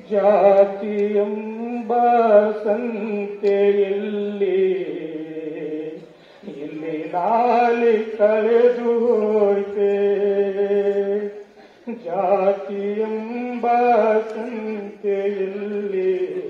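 A solo voice singing a slow, chant-like line in three long phrases of held notes, with short breaks about six and about twelve seconds in.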